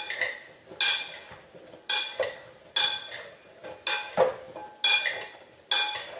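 Sliced mushrooms being tossed by gloved hands in a large glass bowl. About once a second there is a sharp clink off the glass, which rings briefly and fades.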